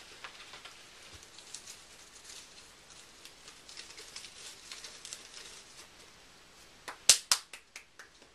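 Soft paper rustling and snips from scissors cutting a folded-paper snowflake, then a quick run of about five or six sharp hand claps about seven seconds in, the loudest part.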